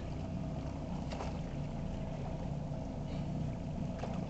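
Boat motor running steadily with a low rumble, with a couple of faint splashes as a landing net scoops a hooked fish at the side of the boat.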